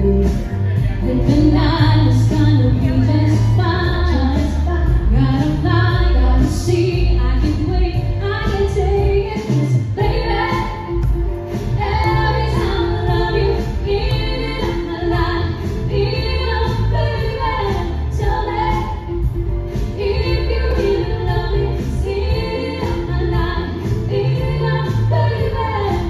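Two women singing a duet live into microphones through a PA, over backing music with a heavy bass line.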